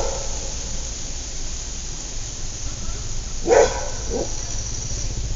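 A dog barking in short single barks: one right at the start, then a louder bark about three and a half seconds in, followed quickly by a weaker one. Under them runs a steady low rumble of suburban background noise.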